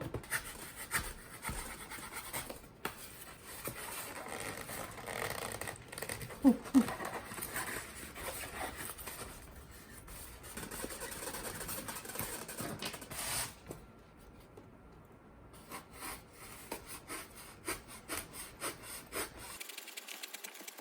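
Styrofoam being cut and scraped by hand to widen a round hole for a pipe: irregular rubbing and scratching with scattered clicks.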